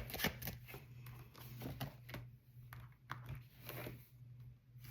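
Faint handling noise of tarot cards: scattered light taps and rustles over a steady low electrical hum.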